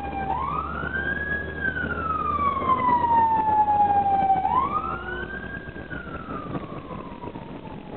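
Emergency-vehicle siren wailing in two slow cycles, each rising quickly and falling slowly. It grows louder toward the middle and fades near the end, over the low hum of the bus's engine.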